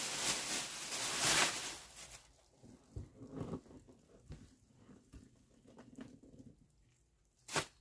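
Thin plastic grocery bag rustling and crinkling for about two seconds. Then soft, scattered squelches of pumpkin pulp and seeds being pulled out of a hollowed pumpkin by a gloved hand, with a brief louder noise near the end.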